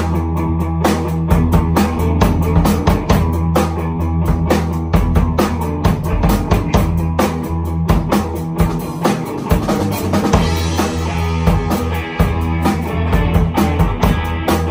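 Live rock band jamming: a Yamaha drum kit keeps a steady beat under strummed guitar and a low, sustained bass part.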